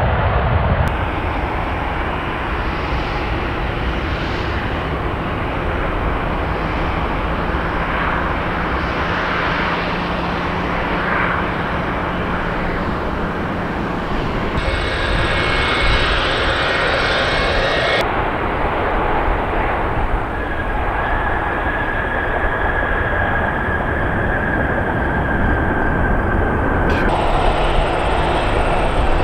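Jet engines of a Boeing 777 freighter at takeoff thrust, a loud steady rushing noise through the takeoff roll and climb-out, broken by a few abrupt changes where the recording is cut. A thin high whine sits over the noise for several seconds past the middle.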